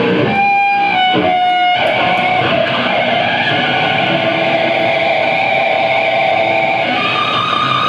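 Electric guitar played live through a loud amplifier: a few separate picked notes, then a held, ringing chord from about two seconds in, with a higher held tone joining near the end.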